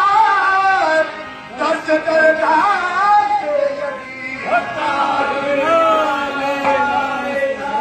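Sufi devotional singing with music: long, wavering sung lines, with a short dip about a second in.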